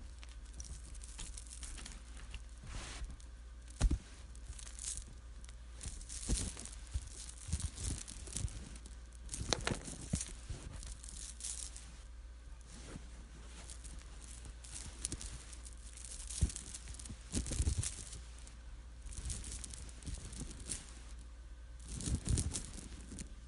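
Rosary beads being handled: irregular spells of small clicks and rustling as the beads and chain shift against each other, with a sharper click about four seconds in. A steady low hum runs underneath.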